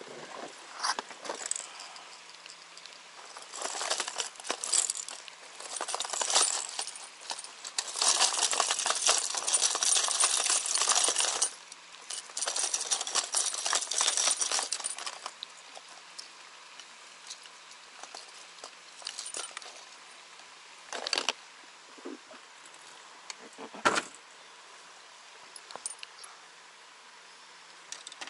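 Bursts of crinkly rustling full of small clinks, like gear being handled, loudest in the middle stretch. Near the end there are a few short, sharp knocks.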